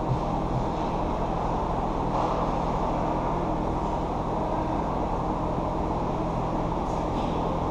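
Steady low rumble with a faint hum, the background noise of a large indoor ice rink.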